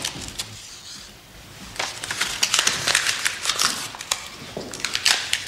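A sheet of paper being crumpled by hand: a run of dry crinkles and crackles starting about two seconds in and lasting a few seconds.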